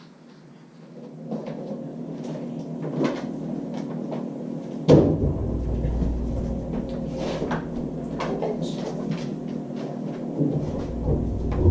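Refrigerator door pulled open with a sudden thud about five seconds in, a low rumble starting with it, followed by scattered knocks and rattles of things being handled in the fridge.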